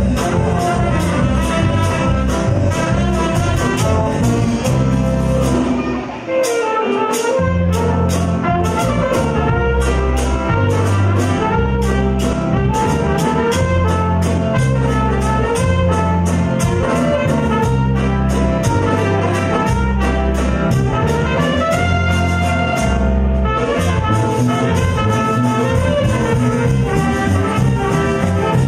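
Live band playing an upbeat tune, with a horn section of saxophones and brass over electric guitar, keyboard, bass and a drum kit keeping a steady beat. The bass drops out briefly about six seconds in.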